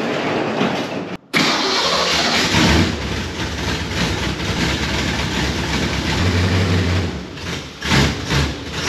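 A Ford 351 Windsor V8 in a 1968 F-100 pickup running as the truck creeps forward, with a few surges of throttle. It has a fresh HEI distributor with timing set at 15 degrees. The sound breaks off briefly about a second in.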